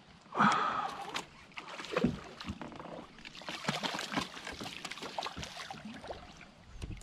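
A small hooked northern snakehead thrashing at the surface by the kayak: irregular splashes and knocks, loudest about half a second in and again about two seconds in, with a stretch of steadier splashing in the middle.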